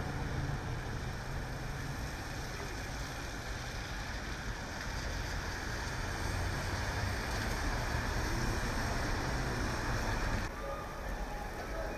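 Cars driving past on a rain-wet city street, with tyres hissing on wet pavement over a low engine rumble. The sound drops off abruptly near the end.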